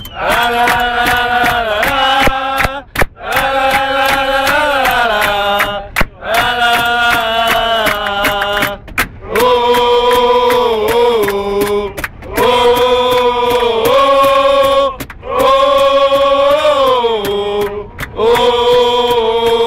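A group of male football supporters chanting a song in unison in sung phrases a few seconds long with short breaks, hands slapping out a beat on the coach's luggage racks.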